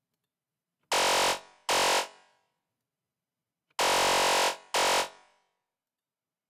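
FM lead patch on the Albino 3 software synthesizer, one oscillator frequency-modulating another on a spectral waveform. Two notes are played twice, about three seconds apart, a longer note followed by a shorter one, each ending in a short fading tail.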